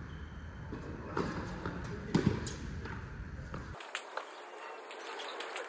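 Tennis balls being struck and bouncing: a handful of sharp pops, the loudest pair a little under halfway through, over low background rumble that cuts out abruptly about two-thirds of the way in.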